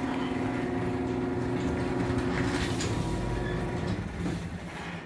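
Electric garage door opener running as the door travels: a steady motor hum over a rumble, which dies away about four seconds in.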